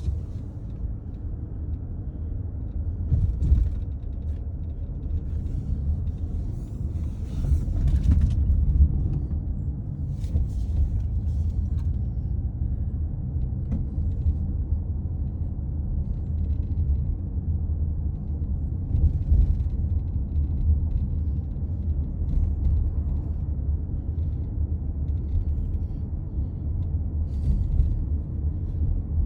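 Steady road rumble inside a moving 2020 Toyota Highlander, with short, irregular rattles and squeaks from the driver's door panel now and then.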